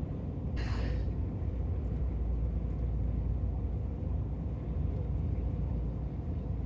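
Steady low road rumble of a car driving on the highway, heard from inside the cabin, with one brief hiss about half a second in.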